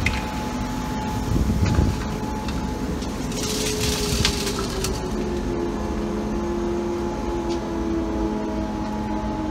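Road traffic noise: a steady low sound of vehicles with a faint engine tone slowly falling in pitch, and a hiss that swells and fades about three to five seconds in.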